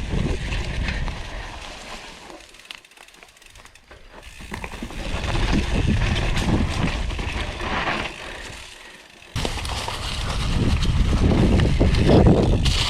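Scott Voltage FR710 downhill mountain bike ridden fast down a dirt trail, with wind rushing over the helmet microphone and the tyres and frame rattling over the ground. The sound dips quieter for a couple of seconds, then jumps up suddenly about nine seconds in.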